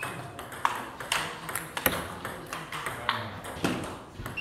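Table tennis ball clicking off the players' bats and the table during a rally: a run of sharp clicks, about two a second.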